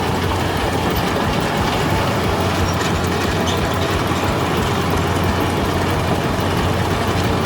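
Heavy machinery running: a steady low engine drone under continuous mechanical rattling and clanking.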